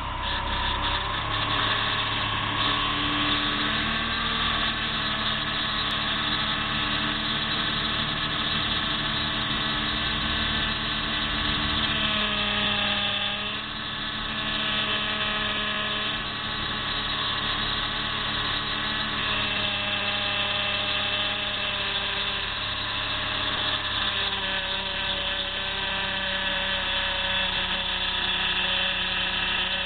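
Chrysler PT Cruiser running with a loud whine from its power steering pump. The whine's several tones shift in pitch now and then, with a short dip about halfway through. The noise comes from the pump running low on power steering fluid.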